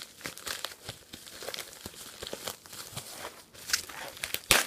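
A mailing package being torn open by hand: irregular crinkling and tearing of the packaging, with a louder rip near the end.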